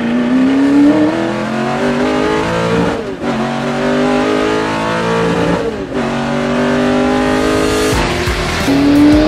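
Ford GT40's V8 heard from inside the cockpit, accelerating hard through the gears: the revs climb, drop sharply at upshifts about three and six seconds in, and then build again.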